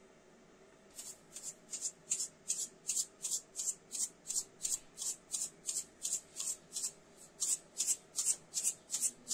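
Seeds rattling in a plastic shaker bottle shaken by hand: a quick, even run of short rattles, about three shakes a second, with a brief pause about seven seconds in.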